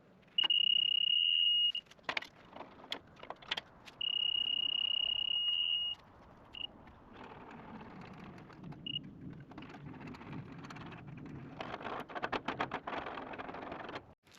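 Laser level beeping: a steady high electronic beep held for about a second and a half, then again for about two seconds, followed by a few short blips. Clicks and handling rustle run between the beeps, with a louder stretch of clatter near the end.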